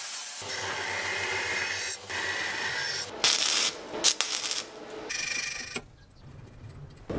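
Angle grinder running against steel for about three seconds, then loud crackling bursts of stick welding on a steel bolt.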